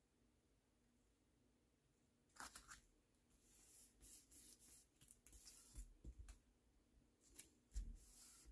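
Near silence, then from about two seconds in faint rustling and soft taps of card stock being handled and pressed flat onto a desk, with a couple of dull thumps near the end.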